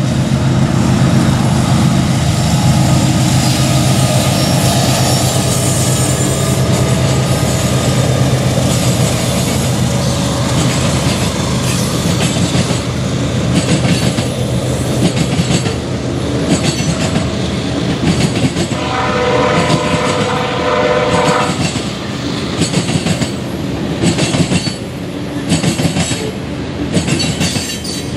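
CSX freight train rolling past: a steady rumble and clickety-clack of wheels over rail joints. A multi-note locomotive horn chord sounds briefly about two-thirds of the way through.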